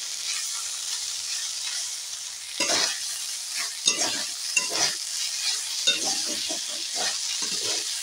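Ground sesame paste sizzling as it fries in oil in a kadai, with a metal spatula scraping and stirring it against the pan in repeated strokes.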